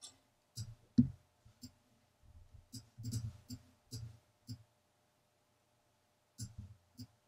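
Computer mouse clicking about a dozen times at irregular spacing, each click with a dull knock, with a pause of nearly two seconds near the end. A faint steady hum sits underneath.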